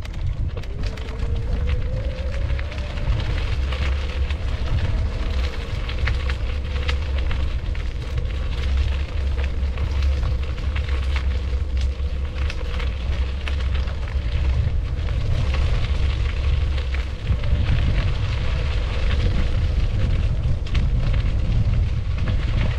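Heavy wind rumble and crackle on the microphone over a motor's steady hum, which rises slightly in pitch in the first few seconds and then holds level.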